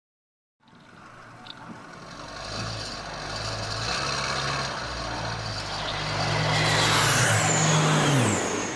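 A road vehicle's engine running and growing steadily louder, its pitch dropping near the end.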